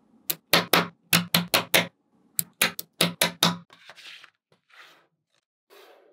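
Small neodymium magnet balls snapping onto a block of magnet balls: about a dozen sharp clicks, some in quick pairs, over the first three and a half seconds, then a few soft rustles.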